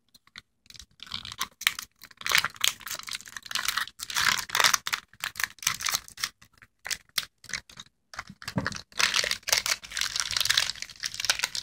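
Plastic candy packaging crinkling and crackling in irregular bursts as hands tear it open and rummage inside.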